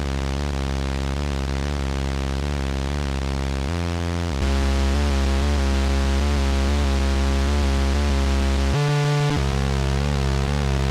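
Formanta Polivoks analogue synthesiser playing a MIDI-sequenced bass line: long, low, buzzy sustained notes rich in overtones. The note changes about four seconds in and again about nine seconds in, getting louder after the first change, and the upper tone wavers near the end.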